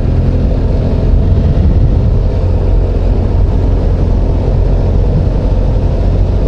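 Motorcycle riding over a milled, torn-up road surface: a steady, loud rumble of engine and tyres.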